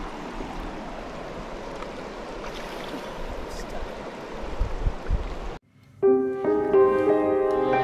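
Steady rush of creek water that cuts off suddenly about five and a half seconds in. After a brief silence, background music with long held notes begins.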